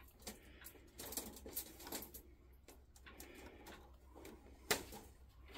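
Quiet scattered clicks and light rattles of young rabbits hopping on a wire-mesh cage floor as a hand moves among them, with one sharper click shortly before the end.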